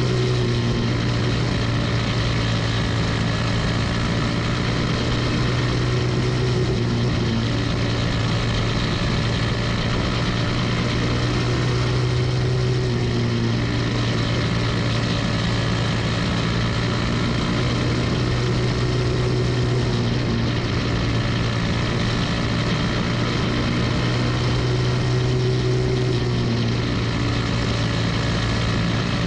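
Single-cylinder Briggs & Stratton Animal kart engine running flat out in a dirt-oval race, a steady engine drone whose pitch dips and recovers slightly about every six or seven seconds, heard from a camera mounted on the kart's cage.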